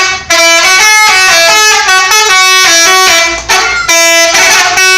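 Bus telolet horn, a multi-tone musical air horn, playing a long, very loud melody of stepped notes that jump up and down in pitch every fraction of a second, with a few short breaks between phrases.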